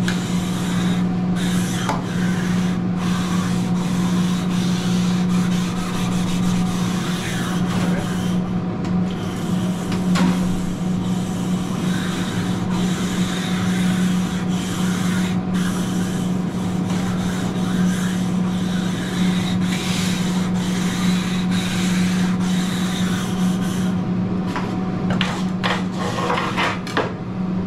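Grill brick scrubbing back and forth over a steel flat-top griddle wetted with lemon juice: a continuous rasping scrape, over a steady low hum. A few sharp clicks near the end as the scrubbing stops.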